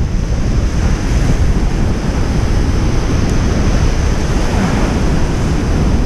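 Breaking surf and foaming whitewater washing over the shallows, a steady loud rush, with wind buffeting the microphone.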